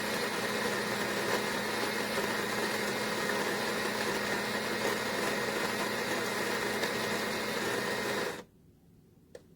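Electric burr coffee grinder running steadily as it grinds beans for two cups at a medium grind, between drip and espresso, for a moka pot. It stops abruptly near the end.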